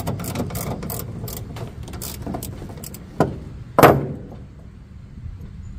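Ratchet wrench clicking in quick strokes while turning the axle bolt of a zero-turn mower's front caster wheel. About three seconds in come two knocks as the metal ratchet is laid down on the wooden trailer deck, the second louder and ringing briefly.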